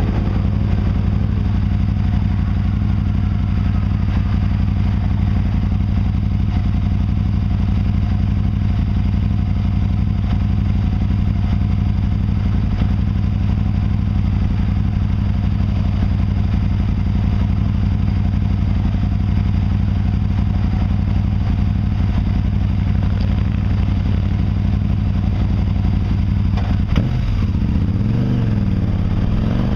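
Can-Am's engine idling steadily, with a wavering shift in pitch near the end.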